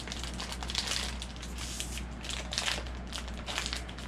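Crinkling and crackling of a shiny foil blind-box bag being squeezed and pulled at while someone struggles to open it, in a quick irregular run of rustles.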